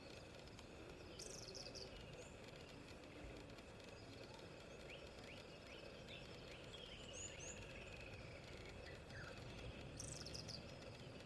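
Faint outdoor ambience: scattered bird chirps and short calls, with a cluster about a second in and another near the end, over a low steady background noise.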